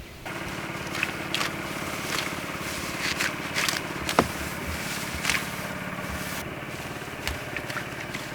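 A small engine running steadily, starting abruptly just after the start, with scattered sharp clicks and knocks over it.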